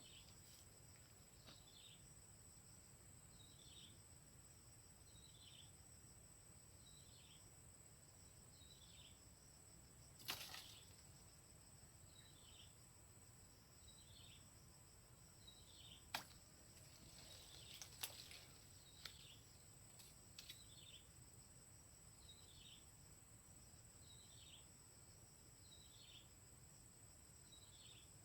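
Faint outdoor ambience: a steady high insect whine and a short falling chirp repeating about every second and a half. A few soft knocks come around the middle.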